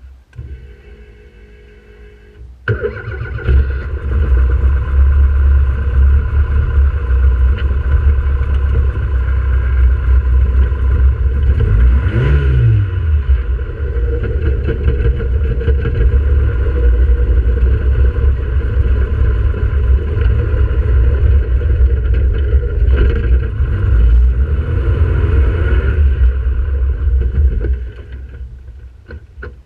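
Kit car's Ford Pinto engine running, heard on onboard camera footage. It gets suddenly loud about three seconds in, rises and falls in pitch twice, and drops back near the end.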